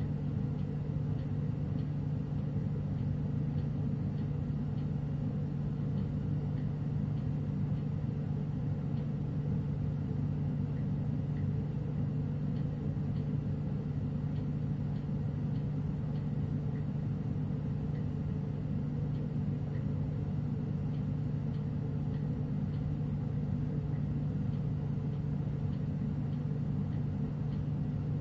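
Glassworking bench torch burning steadily: a constant low rumble with a steady hum, unchanging in level.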